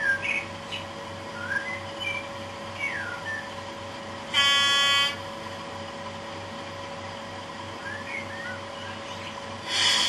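Class 37 diesel sound from a model locomotive's sound decoder: the engine idles with a steady low throb. About four seconds in, a short horn-like tone lasts under a second. Near the end a burst of hiss fades away, the sound of the air brakes releasing.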